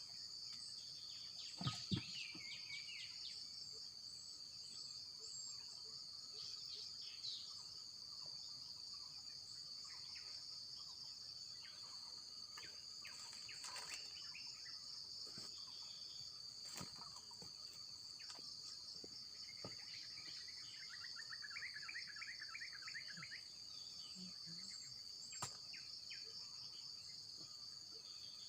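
Steady, high-pitched chorus of insects, with scattered bird calls including a rapid trill about two-thirds of the way through. A few sharp knocks, the loudest near the start.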